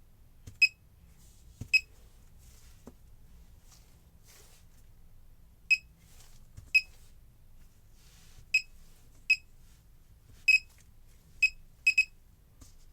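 Laser projection keyboard giving its electronic key-press beep, one short high beep per keystroke, about ten times at an uneven typing pace.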